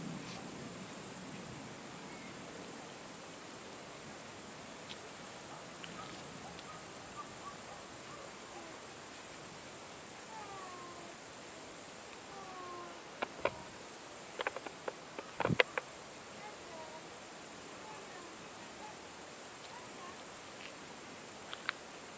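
Crickets chirring steadily in a continuous high-pitched drone, with a few sharp clicks about two-thirds of the way through.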